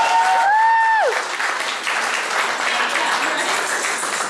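Audience clapping and applauding, with one high, held cheering voice over it in the first second that falls away.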